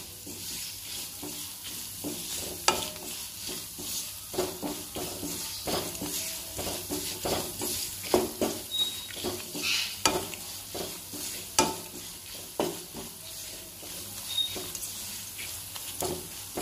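Chilli-spice masala of ginger, garlic and chillies with fresh ground chilli powders sizzling steadily in oil in a nonstick pan. A wooden spatula stirs and scrapes it, knocking against the pan every second or so as the spices are sautéed.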